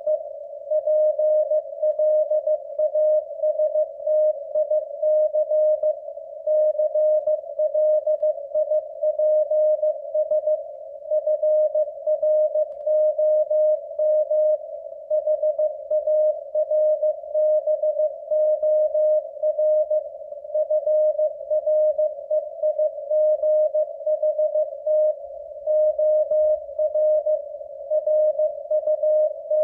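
Morse code sent as a keyed audio tone of about 600 Hz at 15 words per minute: a W1AW code practice transmission, dots and dashes grouped into characters and words.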